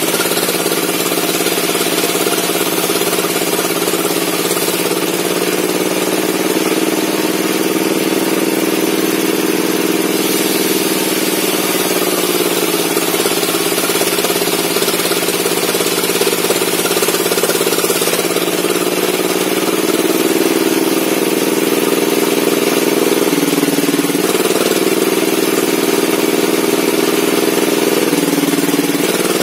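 Bench-mounted circular saw running steadily while cutting a log, its pitch dipping briefly twice near the end as the blade takes the load of the cut.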